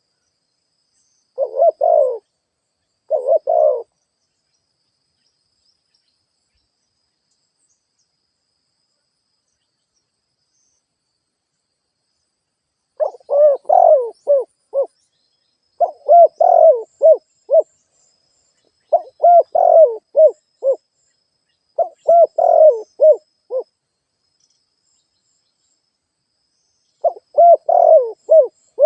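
Spotted dove cooing, a decoy call for luring wild doves. Two short coos in the first four seconds, then after a long pause a run of longer phrases of several notes each, about every three seconds.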